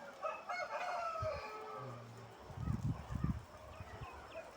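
Chickens calling in a poultry shed, with a burst of low rumbling thumps about two and a half seconds in that is the loudest sound.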